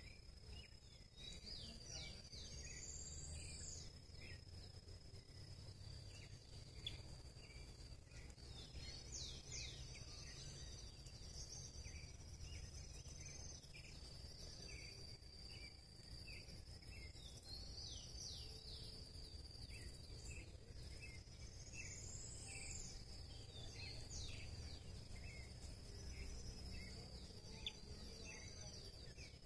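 Birds in the surroundings calling with many short chirps and a couple of sweeping whistled phrases, over a steady high-pitched insect buzz and a low rumble.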